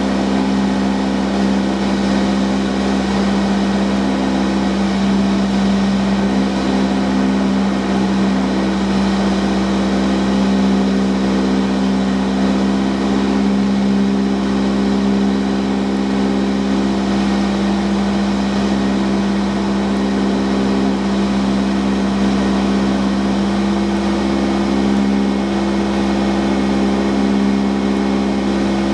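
Cessna 172's piston engine and propeller droning steadily in flight, a constant hum with no change in power.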